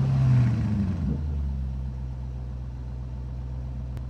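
An engine revving, the note falling and easing off about a second in as it settles to a steady idle.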